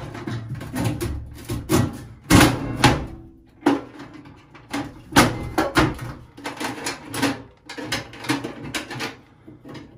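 Medicine cabinet being handled and fitted into its wall recess: irregular knocks, clunks and scrapes, a few of them sharp.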